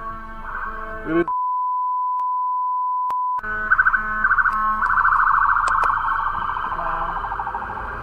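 Layered electronic tones, then a steady single-pitch beep of about two seconds, like a censor bleep, that blanks out all other sound. After it, loud electronic tones pulse and then warble rapidly, alarm- or siren-like.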